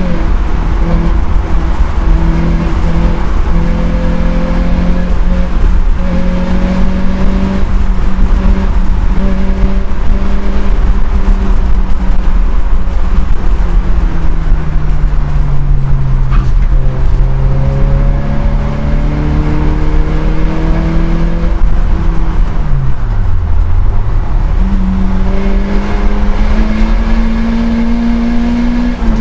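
Citroën Saxo VTS rally car's four-cylinder engine heard from inside the cabin, pulled hard through the gears: the revs climb and drop back at each change, and a little past two-thirds through they fall steeply and climb again through a slow corner. Steady road and wind noise lies under the engine.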